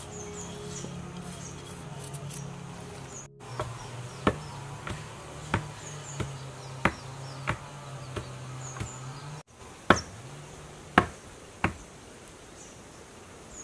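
Long wooden pestle pounding gotu kola leaves in a wooden mortar, a dull knock about every two-thirds of a second from a few seconds in, over soft background music.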